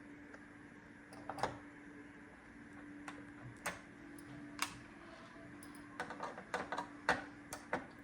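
Light clicks and taps of plastic parts being handled while an iRobot Roomba 690 is taken apart: a few scattered ones at first, then a quicker run of them in the last two seconds, over a faint steady hum.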